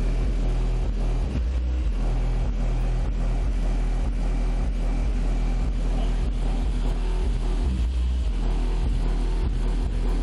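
A car audio system's subwoofers play deep bass at competition volume with one car door open, a round scored at 147.4 dB. The bass holds steady and loud, stepping between a few low notes.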